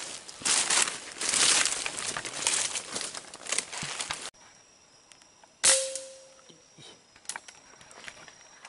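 Rustling and footsteps through undergrowth for about four seconds, breaking off suddenly; then, after a second or so of quiet, a single sharp air rifle shot with a brief ringing tone after it.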